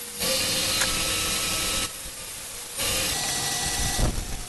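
Benchtop table saw cutting a wooden board: the hiss of the blade through the wood comes in three stretches of one to two seconds, dropping back to the quieter running of the saw between them.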